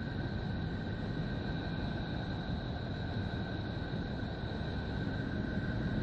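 Electromagnetic space recording presented as the sound of Neptune: a steady static-like hiss over a low rumble, like someone breathing heavily down a phone line, with two steady high tones and a slow swell in loudness.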